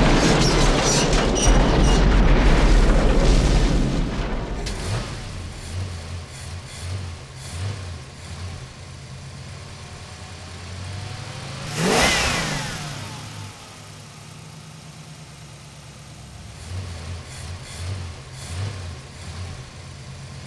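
A steam locomotive crashes and explodes in a deep, loud rumble that dies away over the first four seconds or so. Then a car engine revs in short blips, a car rushes past loudly about halfway through, and more revving comes near the end.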